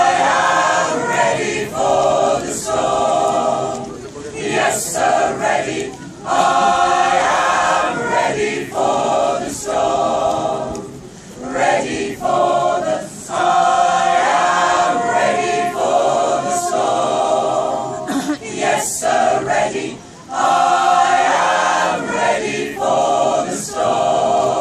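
Mixed choir of men and women singing unaccompanied, phrase after phrase with short breaths between.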